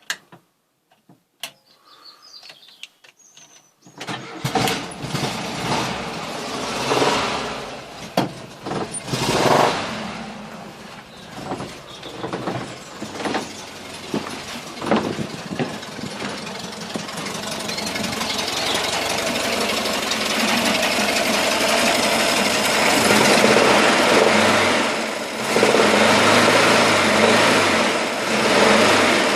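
VW camper's air-cooled 1600 twin-port flat-four engine starting from cold about four seconds in after a few faint clicks. It runs unevenly at first, with irregular loud strokes, then steadier and louder. When cold this engine makes a knock that goes away once warm, which the owner says is not from the fan or alternator.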